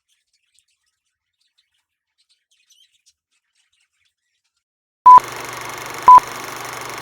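Near silence, then about five seconds in a steady hiss begins and two short, loud electronic beeps of one steady pitch sound a second apart.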